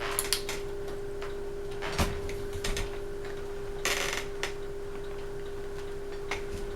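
Westinghouse Apollo Elite ceiling fan's light pull-chain switch clicking several times, with a brief chain rattle about four seconds in. A steady hum runs underneath.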